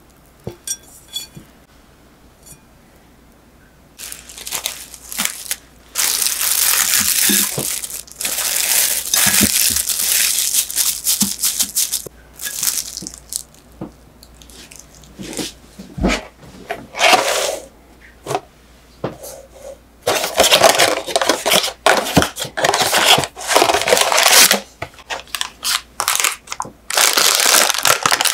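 Plastic cling film crinkling and tearing in loud, irregular bursts as it is pulled off the roll and stretched over a glass food container. Near the end, a coffee packet crinkles as it is torn open.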